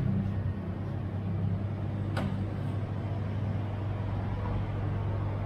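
A steady low hum, with a single sharp metallic clink about two seconds in as a serving ladle strikes the metal food tray.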